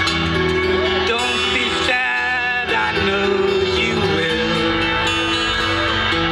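Live rock band playing a slow song through a large outdoor PA, with guitar and a male singing voice, heard from within the audience.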